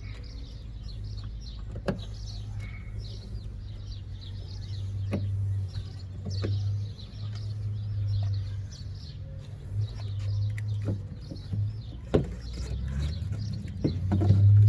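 Scattered small clicks of a Phillips screwdriver working the tail-light screws loose, over a steady low hum, with birds chirping.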